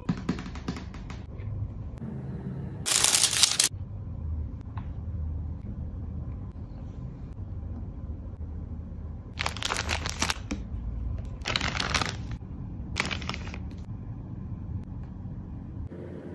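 Toy packaging being handled: four short bursts of plastic rustling and crinkling over a low steady hum.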